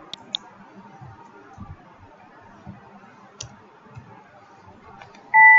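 Computer mouse clicks: a quick double click just after the start and a single click about three seconds in, over faint background noise. Near the end a loud electronic beep with two steady pitches sounds and rings on.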